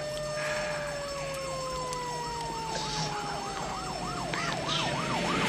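Emergency vehicle sirens. One siren sweeps rapidly up and down about three times a second, over a steady siren tone that slowly falls in pitch.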